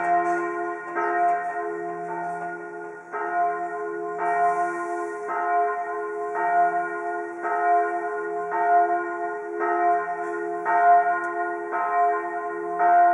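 Church bells of the French Church in Bern ringing in a full peal, strikes coming about once a second and overlapping as each bell's tone rings on.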